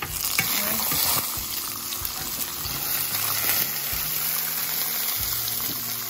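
Onion pieces frying in hot oil in a stainless steel pan: a steady, loud sizzle, with a few light taps of tongs as the onion is turned.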